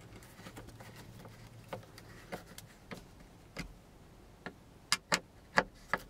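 Screwdriver tightening screws into a 3D-printed plastic sun visor delete plate: a series of short, sharp clicks, sparse at first and coming closer together near the end.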